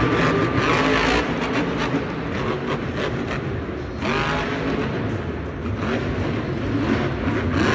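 Monster truck engine revving hard as the truck drives, its pitch climbing about four seconds in; the truck is Grave Digger.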